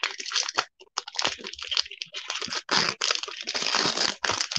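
Foil trading-card pack wrapper crinkling and tearing as it is pulled open by hand, in a string of irregular crackly bursts.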